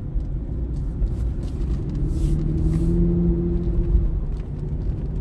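Aston Martin DB9's six-litre V12 and road noise while driving at a steady pace, heard from inside the car as a low rumble. A steady engine drone stands out from about two to four seconds in.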